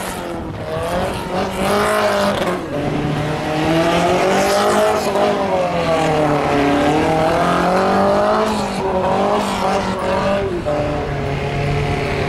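Tuned Fiat 126's air-cooled two-cylinder engine, revving up and dropping back again and again as the car accelerates and brakes through tight gymkhana turns.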